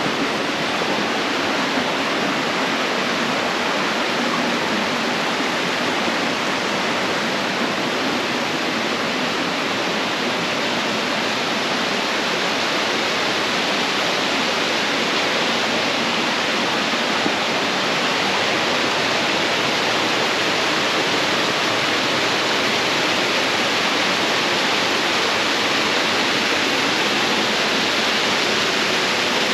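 Waterfall: water rushing steadily and loudly.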